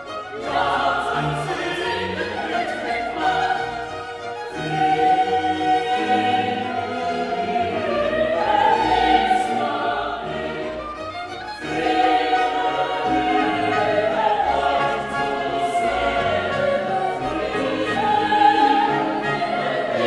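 Background choral music: a choir sings long, held phrases in a classical, operatic style, with an orchestra underneath.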